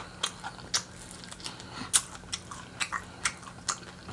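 A person chewing fried chicken, with irregular crunches and mouth clicks a few times a second.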